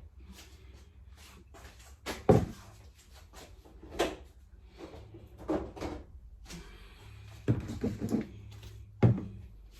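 Irregular knocks and clunks of containers and food items being handled and set down while a refrigerator is cleared out, with a sharp knock a couple of seconds in and another near the end.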